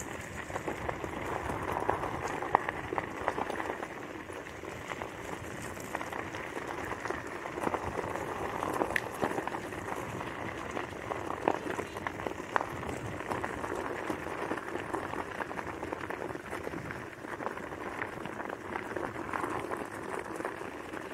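Wheels rolling over a gravel road: a steady crunching rush with scattered small clicks and rattles from the loose stones.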